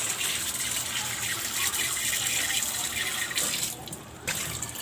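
Kitchen tap running and splashing into a stainless steel sink as green chili peppers are rubbed clean by hand in a plastic plate. The water stops near the end, followed by a single short knock.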